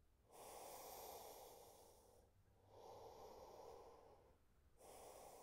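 Faint, slow breathing of a woman, long breaths of about two seconds each with short pauses between them.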